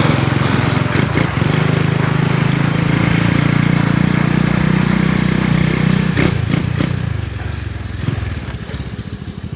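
Twin-exhaust Yamaha Crypton 110's single-cylinder four-stroke engine running steadily. It fades from about seven seconds in, and from about eight seconds in it settles into a slow idle whose separate exhaust beats can be heard.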